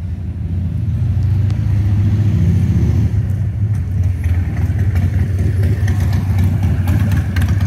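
A Honda CBR1000RR SP's inline-four engine idling steadily through a Yoshimura Alpha T slip-on exhaust, with a deep, even exhaust note.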